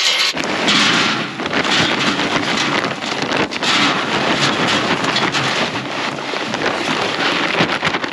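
Loud, gusting wind noise on the microphone.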